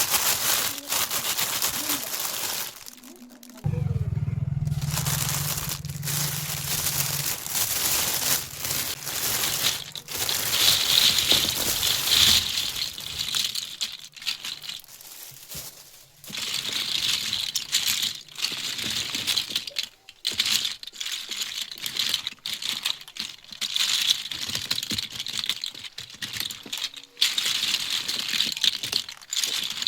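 Plastic packaging crinkling and rustling as it is handled and opened, in uneven bursts with short pauses. A low hum sits underneath from about four seconds in until about twelve seconds.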